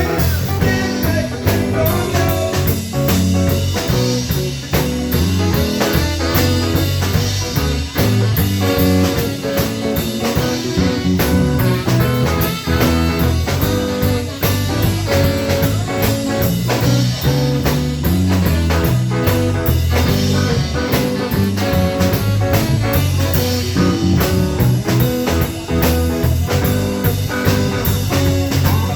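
Live band playing an instrumental blues-rock jam: electric guitar over bass and a drum kit keeping a steady beat.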